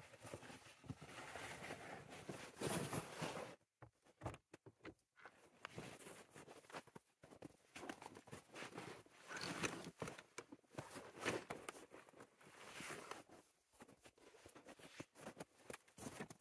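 Footsteps in snow and the rustle and bump of camping gear being handled: a sled of gear pulled over snow, then a rolled sleeping pad and bags loaded into a truck.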